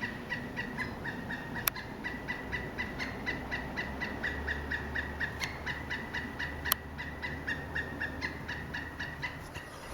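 Car's electronic warning chime dinging over and over, about four short pitched dings a second, with two sharp clicks in between.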